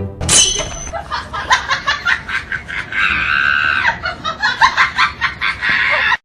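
Shrill laughing and shrieking in quick bursts, with one longer held shriek about three seconds in. The sound cuts off abruptly near the end.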